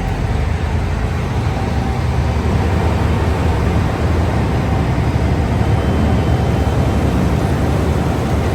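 Beet truck's engine running steadily: an even, low drone with no change in pace.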